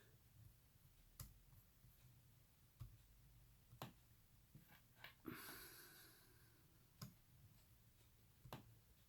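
Near silence: room tone with about six faint, scattered clicks and a brief soft rustle about halfway through.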